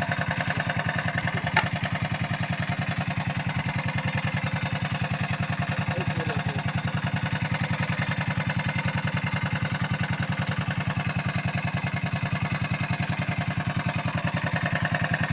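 A small engine running steadily at constant speed, with a rapid, even pulsing beat. One sharp click about one and a half seconds in.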